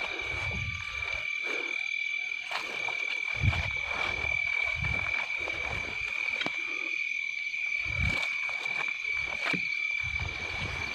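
A steady night chorus of frogs calling, with a continuous high trill throughout. Irregular low thuds and rustles from walking and camera handling come and go underneath.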